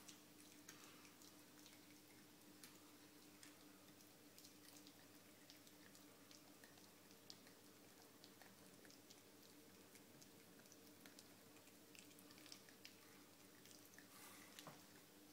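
Faint, irregular wet clicking and crunching of a cat chewing on a rat, over a steady low hum, with a short rustle near the end.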